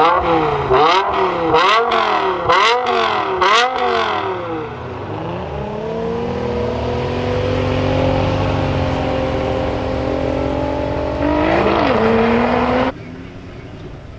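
BMW M5 E61's S85 V10 engine through a KKS race exhaust, revved in about five quick blips at a standstill with sharp crackles on several of them. It then holds a steady, slowly climbing note and gives one more short blip, before the sound cuts off suddenly to quieter background noise.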